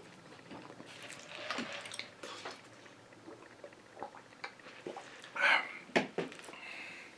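Close-miked eating sounds: soft chewing, then a slurping sip of a drink through a straw about five and a half seconds in. A sharp knock follows as the cup is handled.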